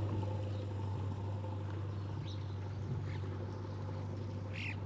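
Diesel tractor engine running steadily in a low, even hum, with a few faint high chirps over it about two and a half seconds in and again near the end.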